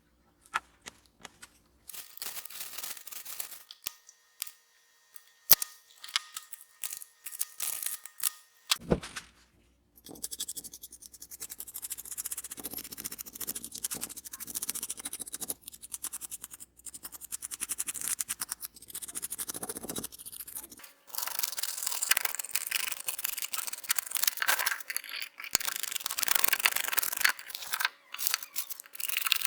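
Hand scrubbing on small scale-model car parts: a fast scratchy rubbing that goes on almost without a break after the first third, with a few sharp clicks and taps before it.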